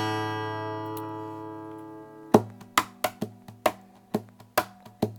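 Acoustic guitar chord left ringing and slowly fading. A little over two seconds in, sharp percussive hits on the guitar start up in a quick rhythm, about three to four a second.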